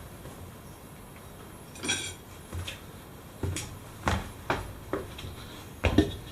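A series of short metallic clinks and knocks, about eight in all, the loudest near the end, as an old, stiff tyre is pushed and worked on a rusty steel wheel rim to force its bead down into the rim's well.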